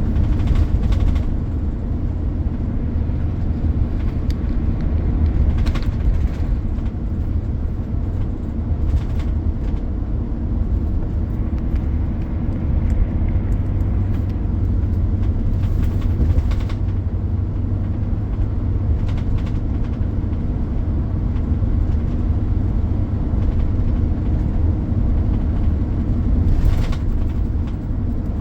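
Steady low rumble of heavy engines at a road-works site, with a few brief knocks scattered through.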